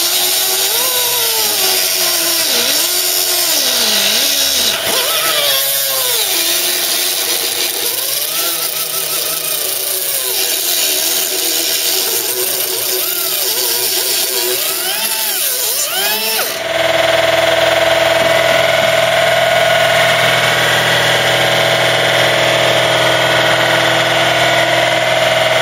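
Air saw (pneumatic cutting tool) cutting through the car's sheet-steel floor pan, its whine dipping and rising as it bites and frees up. About two-thirds of the way through it changes to a steadier, louder whine.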